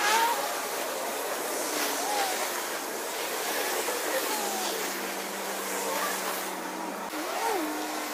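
Road traffic: an even rushing noise of passing cars, with faint engine tones drifting up and down in pitch.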